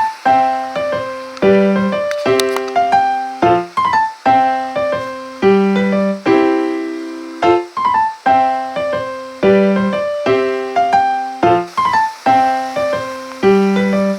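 Background music: a piano playing a gentle repeating phrase of struck notes that fade after each strike.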